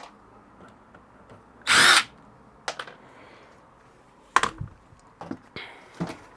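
Power drill whirring in one short burst about two seconds in, backing out one of the screws that hold the power supply case's cover. A few light clicks and knocks of handling follow.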